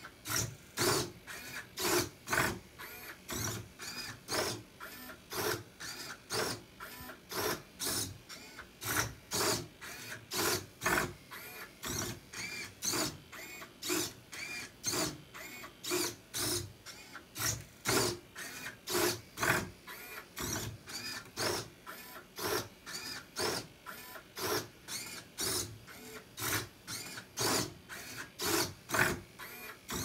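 Servo motors of a 3D-printed Rubik's Cube solving robot whirring and clacking in short, rapid moves, about three a second, as the plastic grippers turn and reposition the cube mid-solve.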